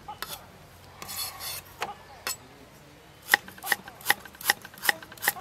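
Cleaver scraping the skin off ginger root on a wooden chopping board, then slicing the ginger: the blade striking the board in a regular run of sharp knocks, about three a second, through the second half.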